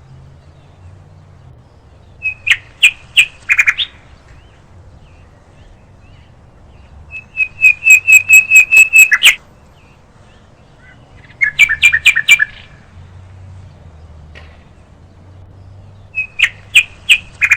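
A bird calling in four bouts of loud, rapid chirps, each bout a quick string of short repeated notes, with pauses of a few seconds between bouts.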